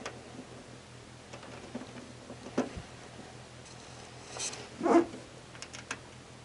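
Handling noise from small screws being started by hand into a dehumidifier's sheet-metal cabinet: scattered light clicks and ticks, with one louder knock about five seconds in.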